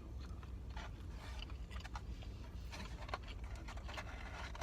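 Eating noises: scattered small clicks and smacks of chewing and handling fast food, over a steady low rumble in a car's cabin.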